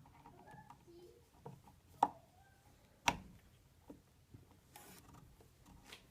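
Scattered light clicks and knocks, with two sharper knocks about two and three seconds in and a brief hiss near the end.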